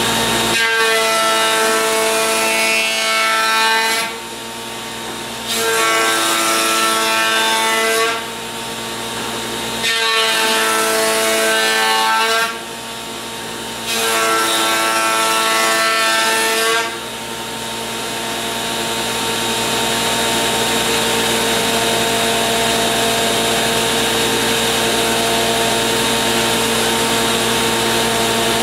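A table-mounted power woodworking cutter running steadily while boards are pushed past it along the fence. The cutting noise swells over four passes of a few seconds each, then runs on without a break from a little past halfway.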